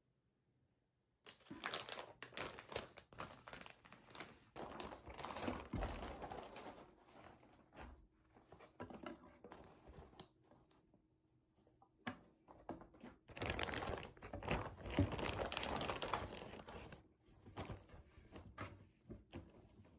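Clear plastic garment bags crinkling and rustling as clothes are handled and pulled out of them. The sound comes in two busy stretches with a quieter gap between.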